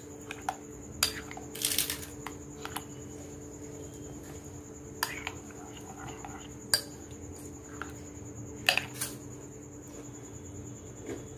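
Metal spoon stirring thick fruit custard in a glass bowl, with irregular sharp clinks as the spoon strikes the glass and soft scraping and squishing between them.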